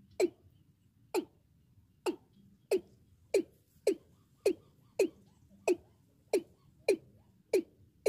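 Male watercock (cúm núm) calling: a regular series of short notes, each dropping quickly in pitch, about three every two seconds and slightly quickening.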